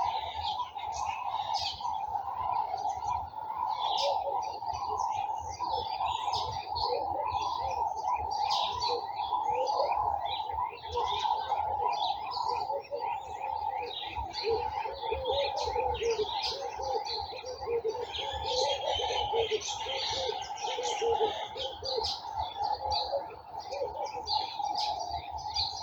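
Many small garden birds chirping and twittering at once, a dense overlapping chorus over a steady drone. Lower warbling notes join in the second half, and the sound cuts off suddenly at the end.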